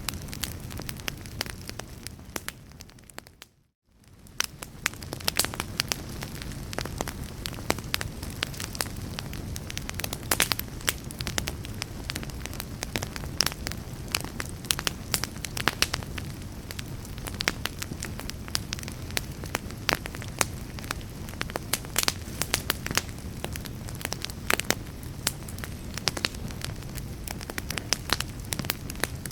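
Wood fire burning in a fireplace: irregular crackles and pops over a steady low rush of flames. About three seconds in the sound fades to silence for a moment, then swells back up.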